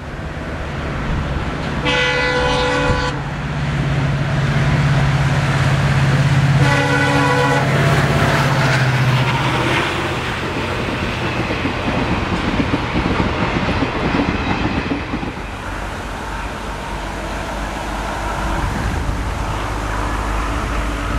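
An EMD WDG4 diesel locomotive's two-stroke engine drones heavily as it approaches, and it sounds two horn blasts of about a second each, some five seconds apart. Then the passenger coaches roll past with wheels clattering over the rail joints.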